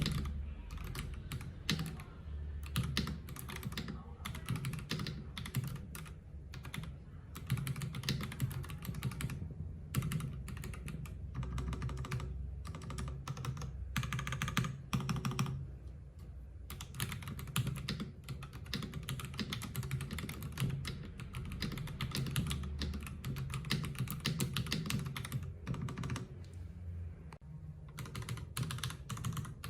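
Typing on a Fuhlen H95s gasket-mount mechanical keyboard with Fuhlen Yellow switches and PBT keycaps: a dense, continuous run of key clacks with a few brief pauses.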